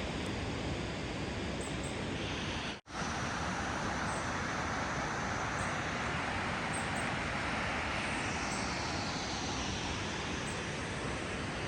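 Steady rushing roar of the Magod Falls on the Bedthi river. It drops out for an instant about three seconds in.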